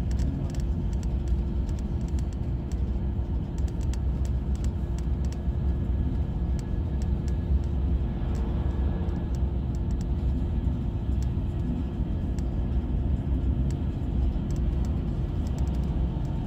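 Steady low rumble of a moving bus or train heard from inside, with a constant hum and light scattered clicks and rattles.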